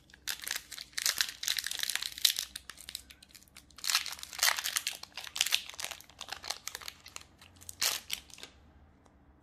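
Foil wrapper of a Magic: The Gathering Commander Legends collector booster pack crinkling and crackling as it is torn open and peeled back by hand. There are two long bouts of rustling, then a few scattered crackles that stop about eight and a half seconds in.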